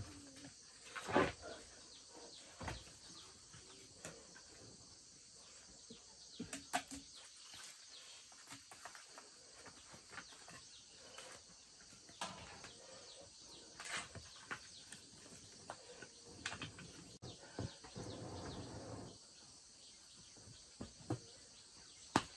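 Sparse knocks, clicks and scrapes of firewood sticks being handled and laid in a ground-level cooking fire, with a brief rushing sound about three quarters of the way through.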